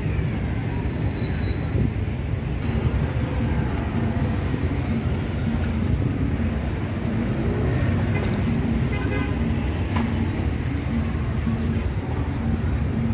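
Steady road-traffic din with a continuous low rumble, and two short high toots about one and four seconds in.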